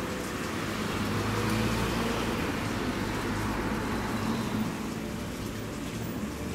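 A car driving past, its engine and tyre noise swelling about two seconds in and easing off after about four and a half seconds.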